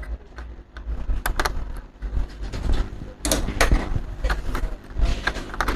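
Irregular clicks and light knocks of a screwdriver and a laptop's plastic case being handled during disassembly.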